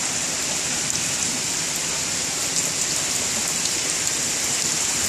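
Steady rain falling, a continuous even hiss with scattered faint ticks of drops landing.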